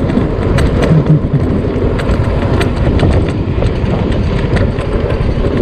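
Motor scooter riding slowly over a rough, cracked road: a dense, steady low rumble of engine and riding noise, with scattered sharp clicks and rattles.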